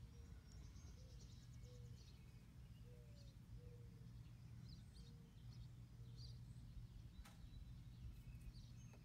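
Near silence: faint outdoor ambience with a steady low hum and scattered faint high bird chirps, and a faint click about seven seconds in.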